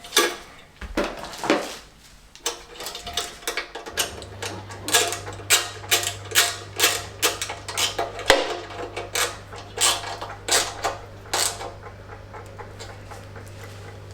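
Hand tool clinking against the Fiat 500 engine's steel fan tinware as the cowling nuts and bolts are tightened: a run of sharp metallic clicks at about two a second.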